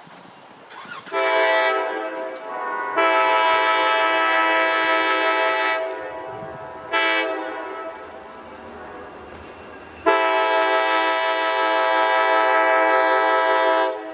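Multi-note air horn of a Wisconsin & Southern EMD SD40 locomotive sounding a chord in the grade-crossing pattern: two long blasts, one short, then a final long blast held until near the end.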